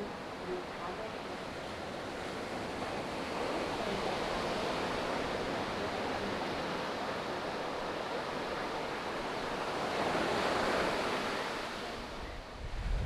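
Ocean surf washing steadily, growing louder about ten seconds in as a wave breaks, then easing, with wind gusting across the microphone.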